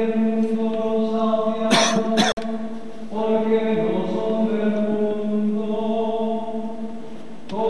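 A man chanting Latin liturgical plainsong, holding long steady notes on one reciting pitch with short breaks between phrases. A couple of brief crackles sound about two seconds in.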